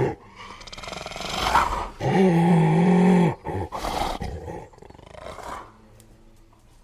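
Spotted hyena growling. The growl builds over a couple of seconds into a loud, steady, pitched growl held for about a second, then comes as a shorter growl and dies away.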